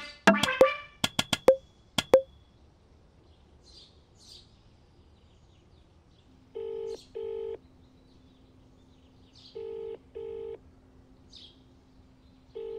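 Mobile phone ringback tone heard through the handset: a double ring repeating about every three seconds, three times, over a faint steady hum, while the call waits to be answered. A few sharp clicks sound in the first two seconds.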